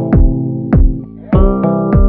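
Background music: sustained keyboard chords over a steady kick-drum beat, about one beat every 0.6 seconds.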